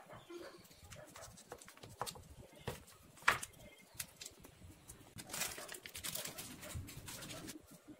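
A kitchen knife knocking against a wooden chopping board as it cuts into a plastic food packet: a few sharp knocks, the loudest about three seconds in. Then the plastic packet crinkles as it is torn and pulled open by hand.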